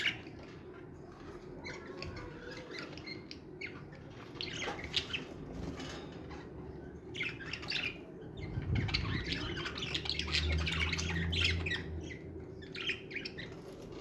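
Budgerigars squawking and chattering in repeated raspy bursts, busiest in the second half, with a low rumble partway through.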